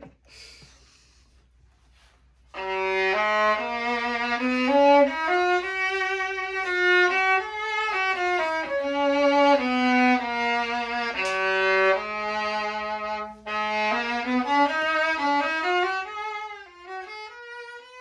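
Tabolin, an experimental violin with drum-skin panels set into its body, all of them weighted with magnets, bowed in a fiddle tune. It starts about two and a half seconds in, breaks briefly near the end and finishes on a rising slide. Its tone is close to an ordinary violin's, without the sympathetic ringing from the tuned panels that was hoped for.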